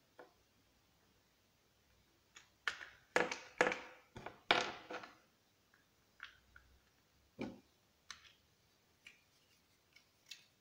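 Light clicks and clatter of small plastic and metal parts being handled and fitted into a Husqvarna 236 chainsaw's starter housing. A quick run of clicks comes about two to five seconds in, then scattered single clicks.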